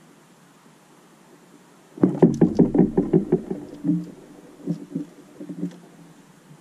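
Fast run of sharp knocks and taps from a tit landing on a hanging plastic tube seed feeder and pecking at it, starting suddenly about two seconds in and thinning to scattered single taps.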